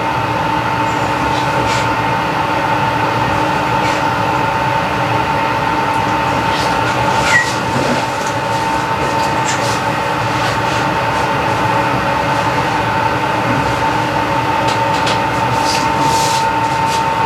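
Steady mechanical hum and rush with a constant high whine running underneath, and a few faint clicks.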